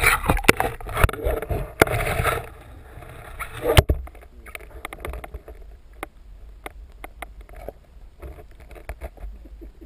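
Underwater sound picked up through a camera housing: a rush of water and movement noise for about the first four seconds, then quieter, with scattered sharp clicks.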